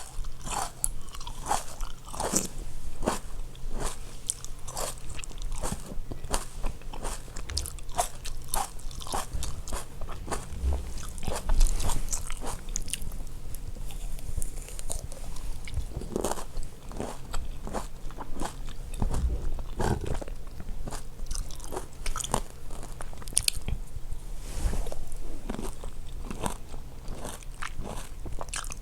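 Close-miked mouth sounds of a person drinking water: a dense run of wet clicks, sips and swallows, with a few low gulps.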